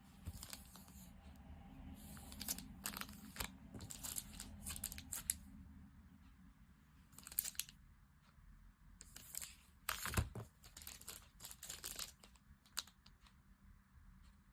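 Packaging being torn and crinkled open in several bursts of rustling, with a soft thump about two-thirds of the way through.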